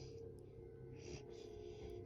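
Sleeping Great Dane's breathing in a lull between snores: one short, airy breath about a second in, over faint steady background music.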